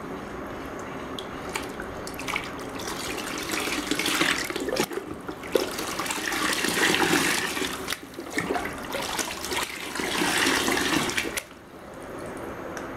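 Water mixed with liquid seaweed fertilizer being stirred in a plastic bucket with a plastic mug: sloshing and splashing, with three louder spells of pouring as the mug is lifted and tipped back in.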